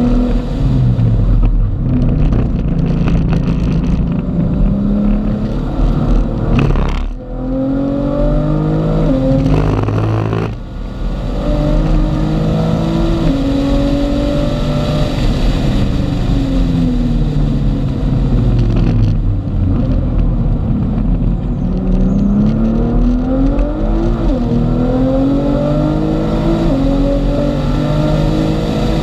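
Car engine heard from inside the cabin at track speed. Its pitch climbs and then steps down at each gear change, over steady road and wind noise, with two short dips in level in the first ten seconds.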